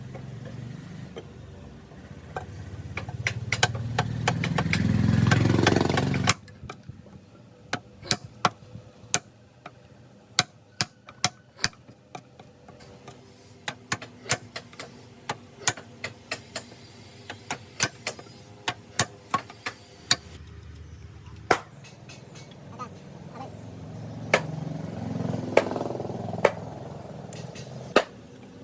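Repeated sharp knocks of hand tools striking wood, irregularly spaced at about one or two a second. Over them a motor vehicle's engine twice swells up and fades. The first swell is the loudest and cuts off suddenly about six seconds in.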